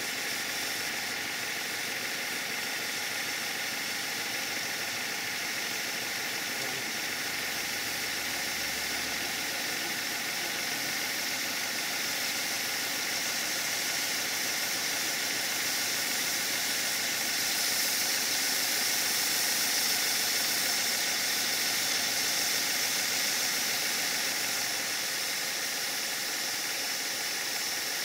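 Coal-fired 5-inch gauge GWR 14XX live-steam model locomotive running on a rolling road, a steady hiss of steam over the running of the engine. The hiss grows louder for several seconds in the middle, then eases back.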